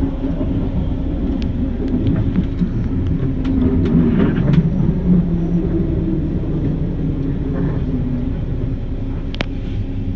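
Detroit People Mover car (UTDC ICTS Mark I automated train) running along its elevated guideway, heard from inside the car as a steady low rumble with a few sharp clicks.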